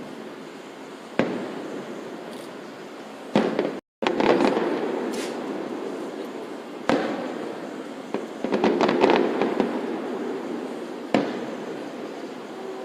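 Aerial fireworks shells bursting one after another, about six sharp bangs, each trailing off in a rolling echo, with a dense spell of crackling a little past the middle. The sound cuts out for a moment just before four seconds in.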